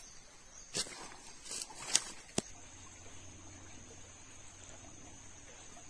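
Footsteps crunching on dry leaf litter and twigs, a handful of sharp steps in the first two seconds or so, the loudest near two seconds in. Then a steady faint forest background with an even, high-pitched insect hum.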